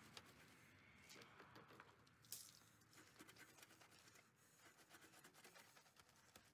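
Faint scrubbing of a bristle wheel brush on a foam-covered alloy wheel: soft wet squishing and rasping, with one sharper click a little over two seconds in.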